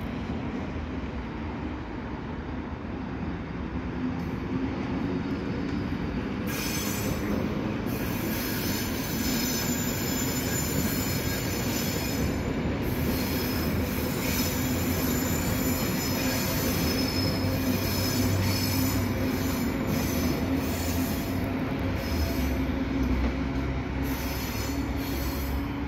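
Electric commuter train running out of a tunnel and past at close range, with a steady rumble and hum. From about six seconds in, its wheels squeal high-pitched on the curve, on and off until near the end.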